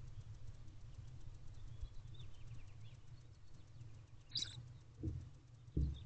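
Barn owlets in a nest box, mostly quiet over a faint steady low rumble: a few soft high chirps, a short high hiss about four seconds in, then two soft thumps near the end as they shift on the nest litter.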